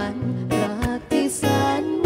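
Acoustic guitar strummed while a singer carries a Thai pop ballad melody, performed live.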